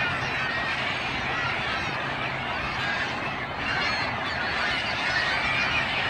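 A large flock of gulls and other waterbirds calling all at once: a dense, unbroken chatter of many overlapping calls.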